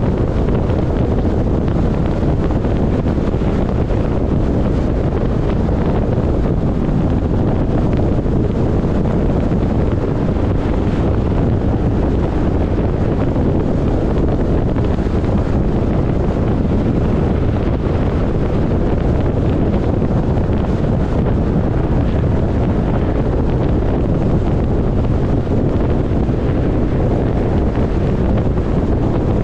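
Steady road and wind noise of a car travelling at highway speed, a dense, even low rumble that does not change.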